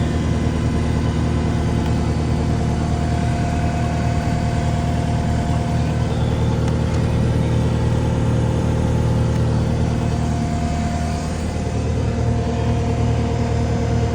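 Engine idling steadily at a constant speed, with a slight dip in level about eleven seconds in.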